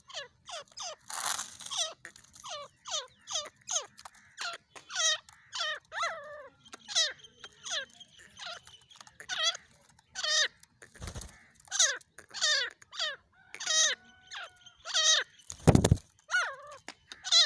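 Grey francolin (teetar) giving a long run of short, squeaky calls, about two a second, each a quick sweeping note. A brief rustle sounds around the middle, and a short flurry of wing-flapping comes near the end.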